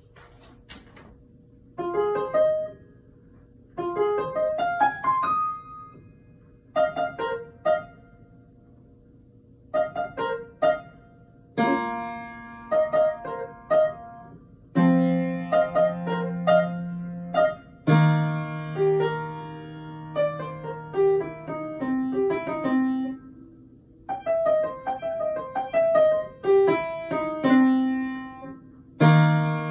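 A child playing a simple piece on an upright piano, phrase by phrase with short pauses between them. Quick rising runs of notes at first, then fuller passages with held low notes from a little before halfway.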